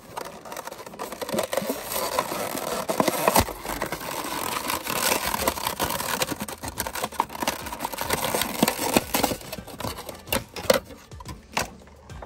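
Clear plastic blister packaging of a die-cast toy crinkling and crackling as it is pried open by hand, with many small clicks and a few louder snaps of the plastic.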